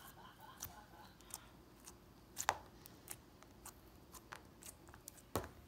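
Fingers squishing and poking Flarp noise putty, giving scattered small sticky clicks and pops, with two louder pops about two and a half seconds in and near the end.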